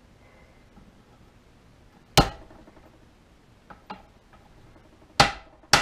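A hammer striking metal while tapping a U-joint bearing cap into the yoke of a Ford F-150 driveshaft. There are three sharp, ringing blows, one about two seconds in and two close together near the end, with two light taps between them.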